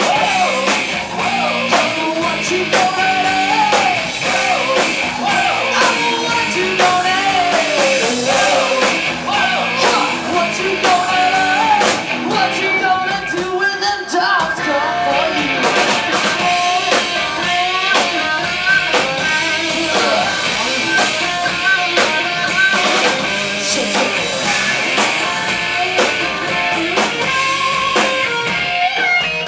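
Live rock band playing loud: a woman singing into a handheld microphone over electric guitars, bass and a drum kit.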